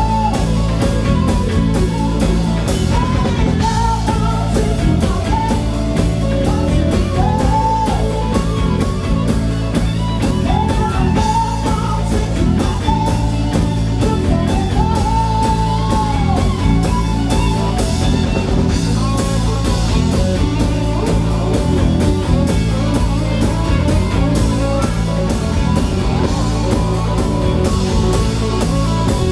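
Live rock band playing: drum kit keeping a steady beat under acoustic and electric guitars, with a woman singing phrases mostly in the first half.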